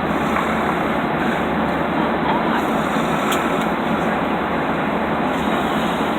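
Steady engine and airflow noise inside the cabin of a Southwest Airlines Boeing 737 in flight, an even rushing sound at a constant level.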